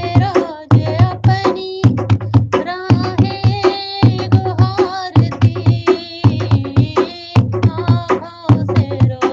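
Hindi devotional song (bhajan) about Shabri and Ram: a voice singing long, gliding held notes over a steady tabla and drum beat.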